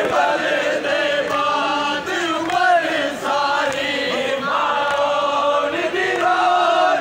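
A crowd of men chanting a mourning lament together, many voices in unison with the melody rising and falling.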